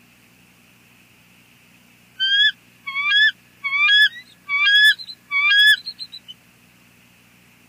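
Bald eagle calling: a series of five loud, high, squealing notes about two-thirds of a second apart, each sweeping up and falling off, trailed by a few short faint notes.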